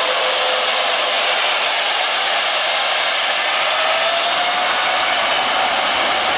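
Turbofan engines of an Airbus A330-900neo (Rolls-Royce Trent 7000) running on the runway: a loud, steady rushing roar with a faint whine that rises slightly in pitch about four seconds in.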